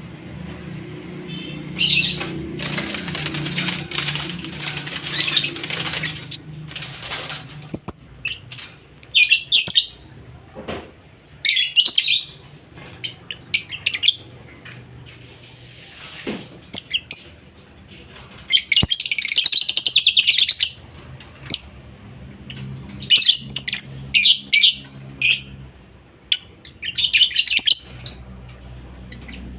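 A bird calling in repeated short bursts of high chirps and trills, with a longer run of rapid chirping about two-thirds of the way through.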